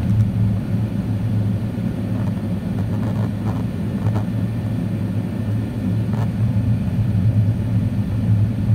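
Steady low rumble of an Airbus A380's engines and airflow heard inside the passenger cabin during the climb after takeoff.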